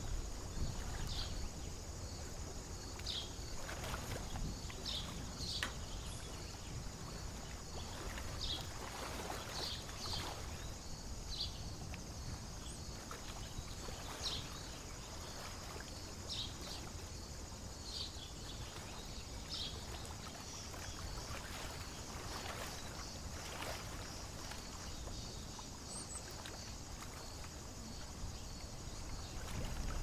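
Short, high bird peeps every second or so over a steady low rumble of lake ambience and gently moving water; the peeps thin out in the last third.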